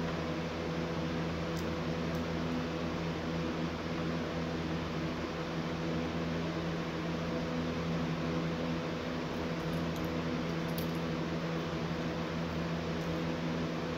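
Steady mechanical hum with a constant hiss, like a fan or appliance running, with a few faint clicks of small plastic Lego pieces being handled.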